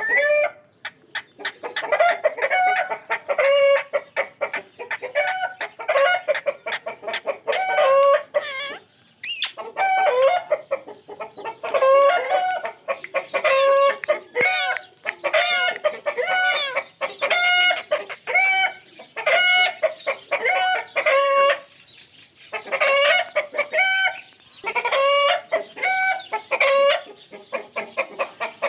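Ringneck parrot calling in short, repeated bursts of pitched, chattering notes, a new burst every second or so, with brief pauses about nine seconds in and again near 22 seconds.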